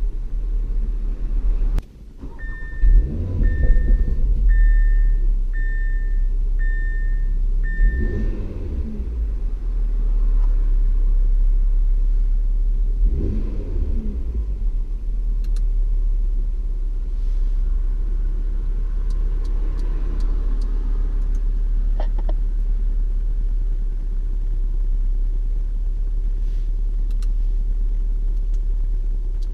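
2018 Audi RS3's turbocharged 2.5-litre five-cylinder engine running: after a brief drop about two seconds in it revs up sharply, then settles to a steady idle with two more throttle blips, around eight and thirteen seconds in. Six short, evenly spaced high beeps sound over the first revs.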